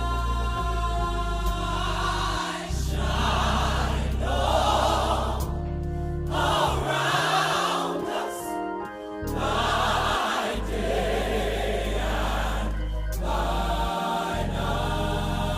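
Gospel choir singing over instrumental backing with a steady low bass.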